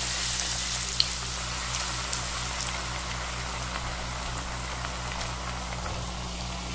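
Besan-battered egg pakoras deep-frying in hot oil in a steel kadai: a steady, dense sizzle, easing slightly in level, with one small sharp tick about a second in.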